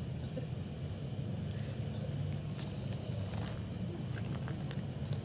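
Crickets trilling steadily in a high, pulsing chorus over a low, steady rumble, with a few faint footsteps on loose stones.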